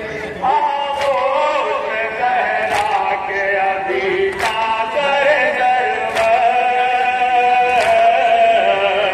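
Men chanting a Shia nauha (Urdu lament), a lead voice with a group of mourners, over a sharp slap about every 1.7 seconds from the mourners' rhythmic chest-beating (matam).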